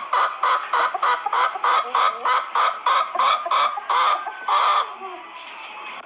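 A chicken clucking in a fast, even run of loud calls, about three or four a second, that stops about five seconds in; a steady low hiss of background noise remains.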